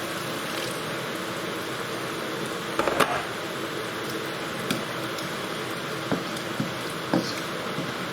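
Tomato paste and spice mix bubbling and sizzling in a pan after a splash of water, a steady hiss with scattered small pops. A brief louder knock comes about three seconds in.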